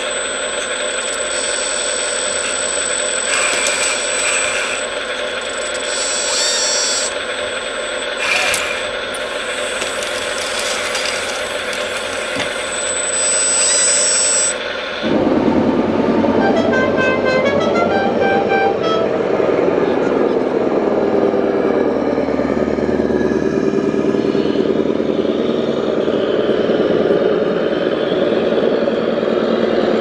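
An RC model Bobcat compact track loader's small electric motors and gears run with a steady whine. Then, after a cut, the din of a busy exhibition hall, with a short series of beeps from an RC truck about a second after the cut.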